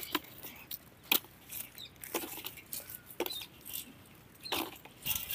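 Boiled palmyra sprouts being pulled out of a clay pot and dropped into a wicker basket: a handful of faint, short knocks and rattles about a second apart.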